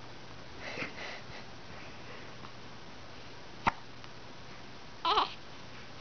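A person hiccupping: a soft sniff about a second in, a sharp, clicky hiccup a little past halfway, then a louder hiccup with a short voiced 'hic' near the end.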